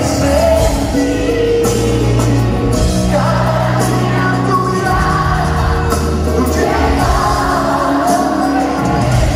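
A live band playing with a singing voice over drums, percussion and electric guitar, heard from the audience in a large, echoing arena.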